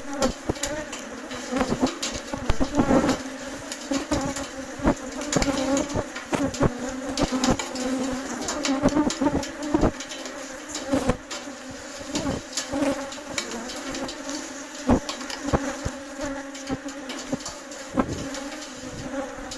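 Bees buzzing in a steady drone, broken by frequent sharp clicks or taps.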